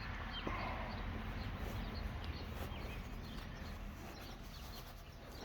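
Small birds chirping here and there over a steady outdoor background hiss and low rumble.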